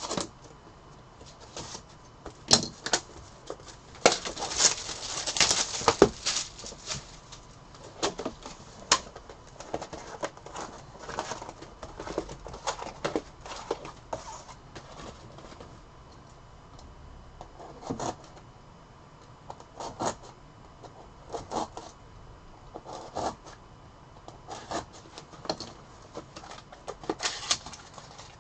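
Bowman baseball cards and their pack wrappers being handled: irregular clicks, snaps and rustles, with a longer, denser rustle about four to six seconds in.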